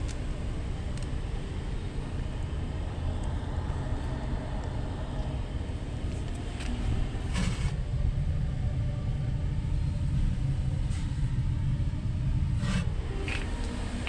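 Electrolux front-load washing machine running, a heavy steady low rumble that swells for several seconds in the middle and then drops back. A few sharp knocks sound over it, two of them near the end.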